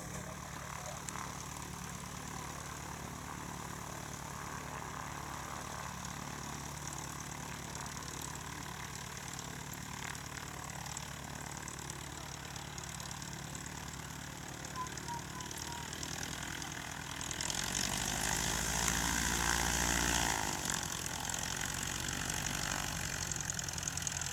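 Cessna 182P Skylane's six-cylinder piston engine and propeller droning steadily as the light aircraft flies in on approach to land. The sound swells louder for a few seconds past the middle, then eases back.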